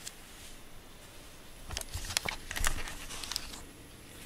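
Rustling and handling noise: a quick run of clicks, rustles and soft low thumps for about two seconds, starting a little under two seconds in, as a hand moves over a cat's fur and a fleece blanket.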